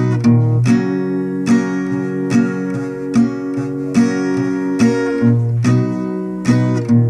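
Acoustic guitar strumming chords, a strum roughly every 0.8 seconds, with the chords ringing on between strokes.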